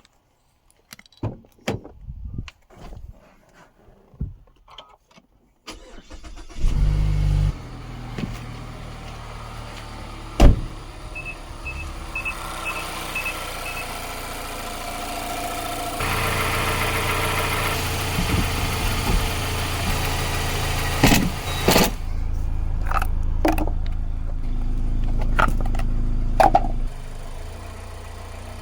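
Car engine cranked and started about six seconds in, then running steadily at idle, a little louder from about the middle on. Clicks and knocks come before the start and now and then during it, with a quick series of six short chime beeps a few seconds after it starts.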